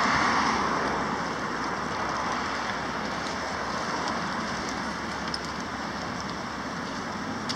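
Steady hiss of road traffic, mostly tyre noise, loudest at the start and easing off slightly after about a second.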